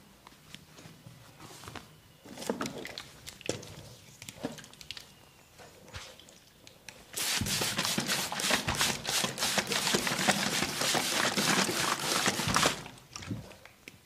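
Hands-on massage percussion: scattered single taps, then a loud, dense run of rapid taps lasting about five seconds from about halfway through, then a few more single taps.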